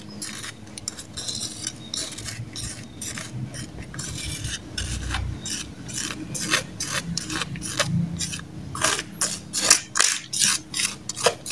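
Crushed biscuit and tempe fishing-bait mixture being stirred in a bowl: a run of short scraping strokes, louder and quicker in the last few seconds.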